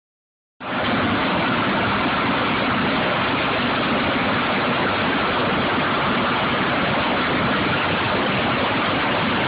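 Steady, loud machinery noise on a drilling rig floor while pipe is tripped into the hole, cutting in abruptly about half a second in.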